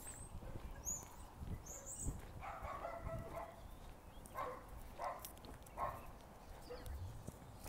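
A dog barking, a run of barks a little over two seconds in followed by three single barks under a second apart. Faint high bird chirps come in the first two seconds, over soft footsteps.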